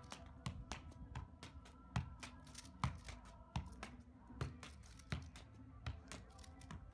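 Football kept up with the feet and knees, a soft thud with each touch about every 0.7 seconds, over quick plastic clicking of a Rubik's cube being turned in the hands.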